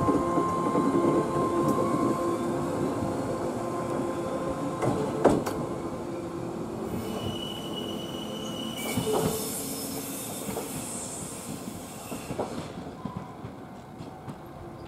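A KuMoHa 123 electric railcar pulling away and running off down the line, its motor hum and running noise fading as it goes. There are a few sharp clacks from the rail joints, and a high wheel squeal around the middle.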